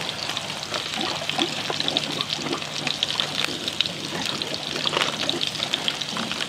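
Food frying in hot oil in a pan on a gas burner: a steady sizzle with a dense crackle of small pops.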